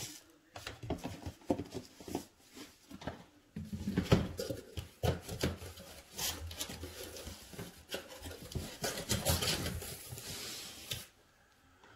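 Cardboard boxes and packaging being handled and moved about: irregular rustling, scraping and knocks, which stop about a second before the end.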